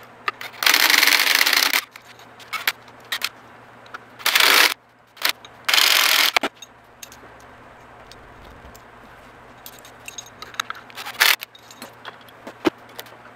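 Handheld power ratchet running in several short bursts, the longest about a second, as it backs out engine bolts. Light metallic clinks and clatter of parts being handled come in between.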